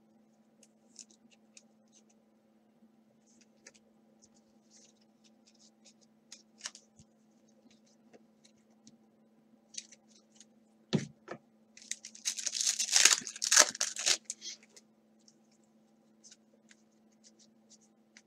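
A trading-card pack wrapper being torn open and crinkled for about two seconds, after a knock; light clicks of cards being handled come before and after it.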